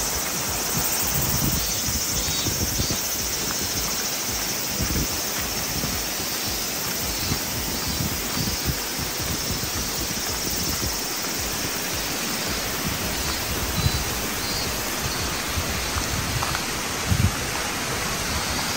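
Steady rushing of a forest river, with irregular low buffeting on the microphone.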